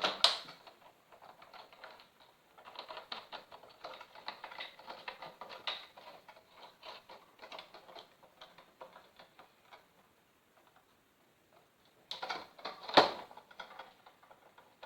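Rapid small clicks and rattles of ring-light stand and mount parts being handled and fitted together, then a pause and one loud knock near the end.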